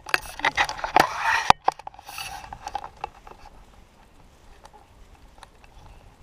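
Rustling and knocks for about a second and a half, then a faint steady rush of the sea's undertow below the cliffs, with scattered light ticks.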